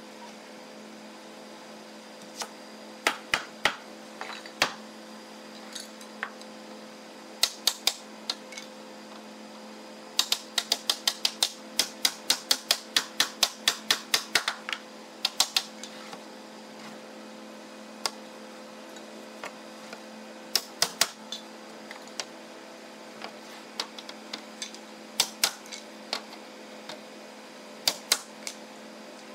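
Hammer striking wood as boards are knocked together into a wooden wardrobe panel: sharp knocks in irregular groups, with a fast run of about three blows a second about a third of the way in. A steady machine hum runs under it.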